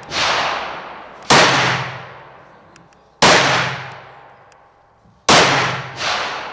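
Shotgun shots fired one at a time, three loud blasts about two seconds apart, each ringing out and fading over a second or more. A softer bang comes just after the start and another shortly after the last loud shot.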